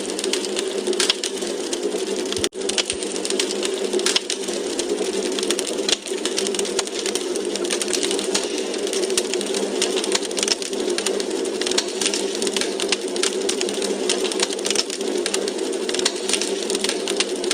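Wood fire crackling in a fireplace: a dense, steady stream of small pops and snaps over a constant hiss, with a brief dip in level about two and a half seconds in.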